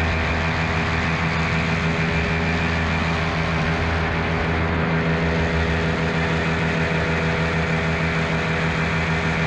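Miniplane Top 80 paramotor, a single-cylinder two-stroke engine, running steadily with its propeller at an even, unchanging throttle.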